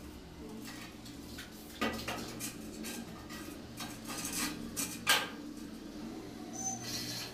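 Irregular clinks and knocks as a long straight edge and hand tools are handled and pressed against a plastered wall during marking out; the sharpest knock comes about five seconds in.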